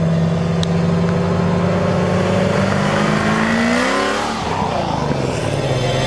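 Supercharged LT4 V8 of a 2017 Corvette Z06, with a stage 3 cam, Kooks headers and the catalytic converters deleted, accelerating from a roll. Its note rises steadily as the car approaches, then drops in pitch as it passes about four seconds in.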